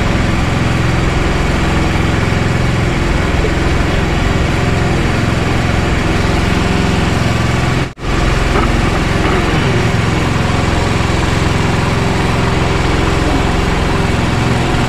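Small engine running steadily, a constant hum, with a momentary dropout about eight seconds in.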